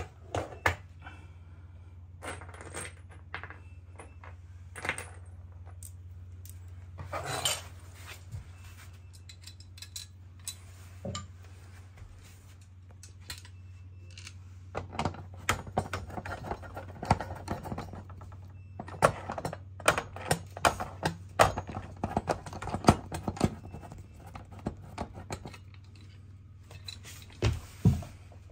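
Steel TV wall-mount bracket parts, bolts and washers clinking and clicking as they are handled and screwed on by hand with a screwdriver. The taps come singly at first, then in dense clusters through the second half.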